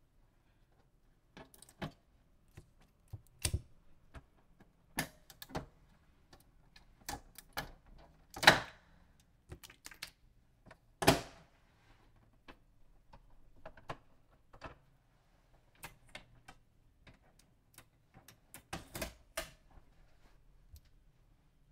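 Irregular clicks, taps and short rasping peels as blue shipping tape is pulled off the plastic body of an Epson L3250 inkjet printer and its parts are handled, with two louder rasps about a third and halfway through.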